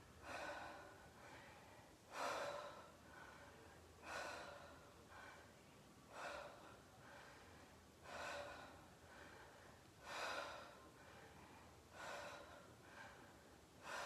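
A woman breathing hard under the effort of dumbbell overhead presses in a V-sit. There is a sharp breath out about every two seconds, one per press, and a softer breath in between.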